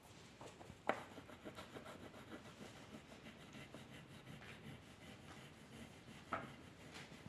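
Pen or pencil scratching across paper in short drawing strokes, with a couple of sharp taps, one about a second in and one near the end.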